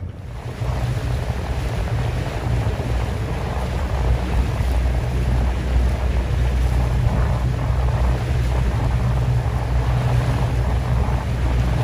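Small boat's motor running steadily as a low hum, with wind rushing over the microphone.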